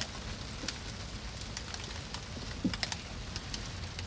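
Rain and sleet ticking and tapping irregularly on a small sailboat's cabin roof, heard from inside the cabin, over a low steady rumble, with one slightly louder knock near the end.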